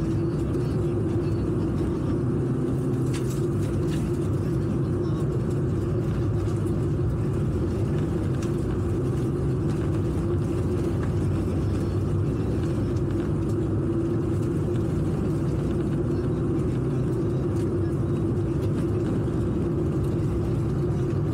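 Rally car's engine running at steady revs, with tyre and road noise from a dirt road, heard from inside the cabin. A few sharp ticks stand out, one around three seconds in and one near the end.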